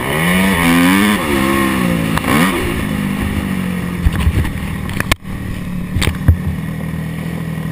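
Yamaha YZ250F four-stroke single-cylinder dirt bike engine, heard from a helmet-mounted camera, revving up and down with the throttle for the first couple of seconds, then settling to a steady lower running note as the bike slows. A few sharp knocks come in the second half, with a sudden brief dropout about five seconds in.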